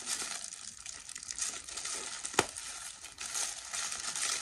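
Tissue paper crinkling and rustling as a wrapped item is unpacked, with one sharp click about halfway through.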